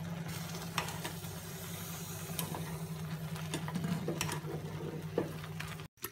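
Instant ramen noodles boiling hard in a pan of water: a steady bubbling hiss with a steady low hum underneath. A few light clicks come from a utensil stirring the noodles.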